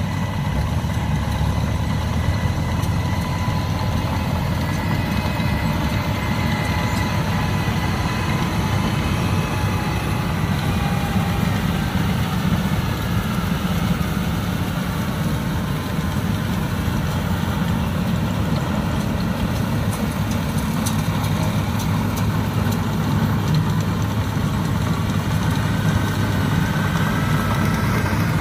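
Yanmar AW82V combine harvester running steadily, an even engine drone with a faint machinery whine over it.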